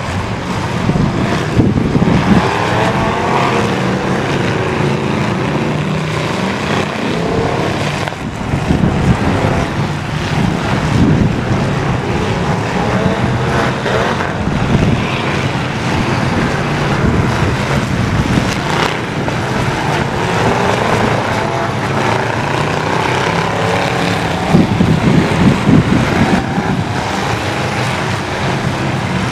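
Several full-size pickup truck engines revving hard together in a demolition derby, their pitch repeatedly rising and falling as the drivers accelerate and back off.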